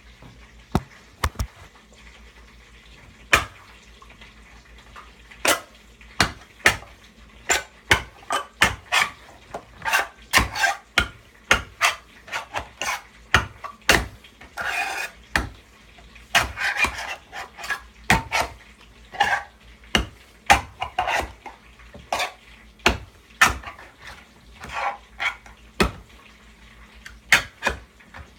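Kitchen knife stabbing and prying at a steel tin can to force it open without a can opener: irregular sharp metallic knocks, one or two a second, with stretches of scraping in the middle.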